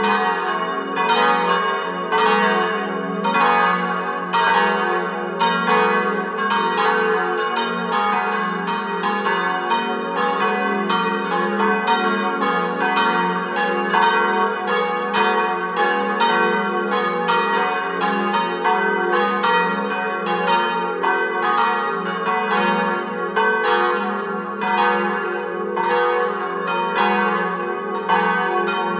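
Four church bells cast by Giovanni Colbacchini of Trento, tuned to a G-flat major diatonic scale, swinging full circle together in a plenum peal. Their strokes come about twice a second, overlapping and ringing on into one another.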